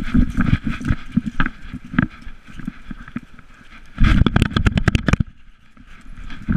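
Collar-mounted GoPro knocking and rattling as an Irish wolfhound runs over gravel and dirt, with irregular thuds of its strides. About four seconds in comes a rapid run of loud knocks lasting about a second.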